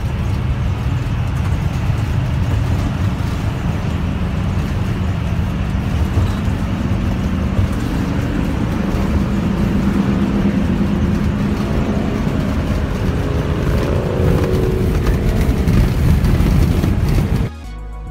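Motor vehicle on the road: steady engine and road rumble, with the engine pitch rising slowly in the second half. It cuts off suddenly near the end.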